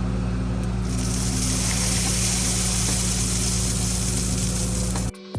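Cat 308 excavator's diesel engine running steadily, with a hiss in the upper range joining about a second in. It cuts off suddenly about five seconds in, giving way to plucked guitar music.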